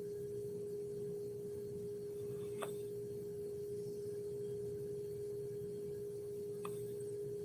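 A steady hum held at one pitch over a low rumble, with two faint clicks about four seconds apart; no snoring or breathing rhythm is heard.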